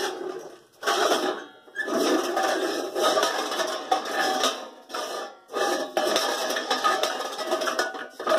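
Sheet-steel sections of a cut-apart jerry can sliding over each other, steel scraping and rubbing on steel with a tinny ring. It comes in three bouts: a short one about a second in, a long one from about two to five seconds, and another from about six to eight seconds.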